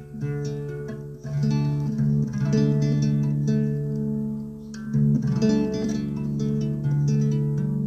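Acoustic guitar strumming chords that ring on, with a fresh chord struck about a second in and another about five seconds in.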